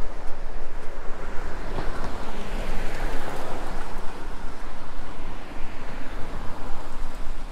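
Wind buffeting a GoPro action camera's microphone with a steady low rumble. A broad whoosh swells up about two seconds in and fades again a few seconds later.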